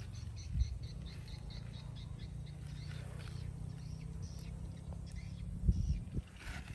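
High, short chirps from a small animal, repeating about three times a second over a steady low rumble, with two dull thumps, one about half a second in and one near the end.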